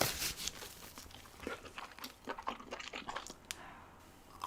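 Close-miked chewing with scattered wet mouth smacks and clicks, tapering off near the end.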